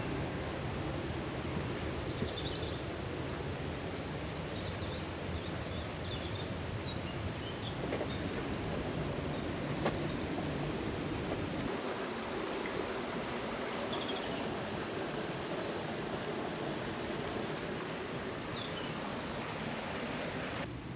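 Steady rush of river water running fast after heavy rain, with small birds chirping briefly now and then above it. The deepest part of the rushing falls away about halfway through.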